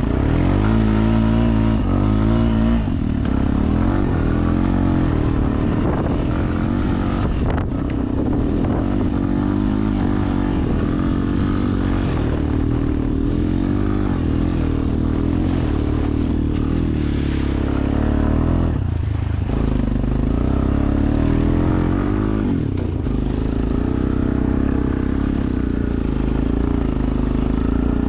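ATV engine heard from on board while riding, its pitch rising and falling as the throttle is worked, with brief drops about eight and nineteen seconds in.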